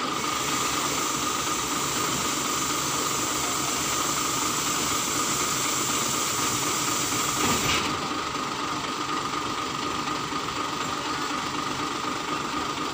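Isuzu dump truck's diesel engine running steadily, with a hiss over it that cuts off suddenly about eight seconds in, while the raised tipper body is let down.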